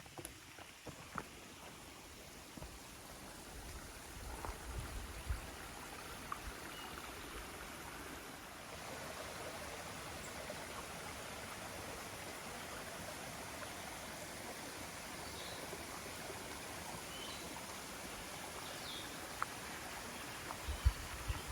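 Steady rush of a flowing stream, building over the first several seconds and then holding even, with a few faint, short high chirps in the second half.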